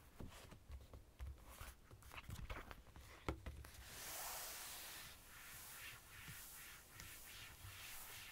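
Quiet handling of a small notebook on a desk: the cover closing, light taps and clicks with one sharper click about three seconds in, then a soft rustling and rubbing with faint strokes about twice a second as the book is handled and lifted.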